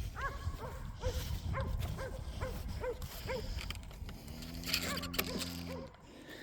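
One of the cattle lowing once: a steady low moo lasting under two seconds, about four seconds in. Under it runs a string of small repeated chirps about three a second, with a low rumble.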